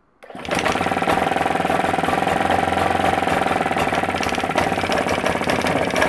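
Vire two-stroke marine engine starting up a fraction of a second in, catching at once and running steadily at low revs with a rapid, even firing beat. It is fitted with a defective ignition coil that breaks down only at higher revs, so at this low speed it runs without missing.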